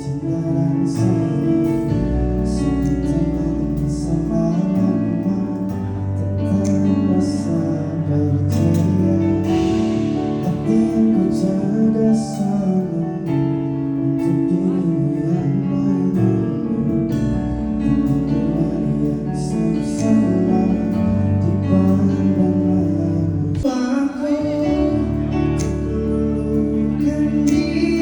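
Live band playing an instrumental passage, with held bass notes, guitar chords and drums.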